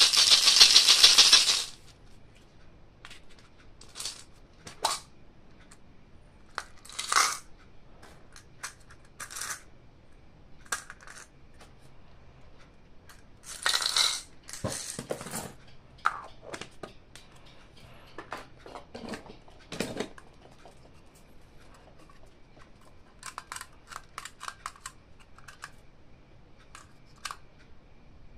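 Toy packaging being unboxed and handled: a loud rip or rustle of packaging at the start, then scattered clicks, taps and rustles of plastic and cardboard, with another rustle about halfway through and a run of quick small clicks near the end.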